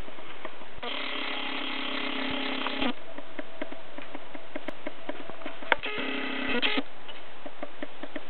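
A small motor whirs twice, with a steady even pitch: once for about two seconds, then briefly near the end, in the manner of a camcorder's zoom motor. Under it runs a steady hiss with scattered faint ticks.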